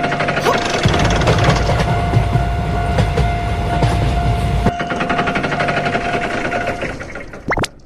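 Train passing with heavy rumble and rapid wheel clatter, with a steady high tone sounding over it. The rumble drops away a little under five seconds in, the tone stops near the end, and a quick rising tone follows.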